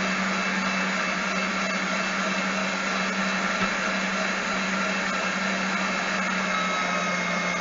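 HOUSNAT electric meat grinder motor running steadily with a constant hum while grinding round steak.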